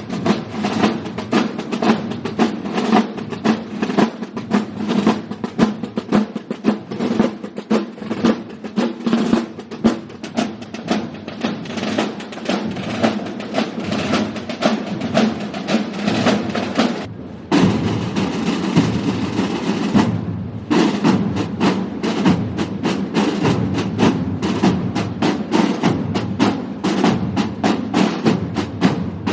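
Massed processional drums of Holy Week drum brotherhoods beating in a street parade, with drum rolls. The sound breaks off briefly twice, about seventeen and twenty seconds in.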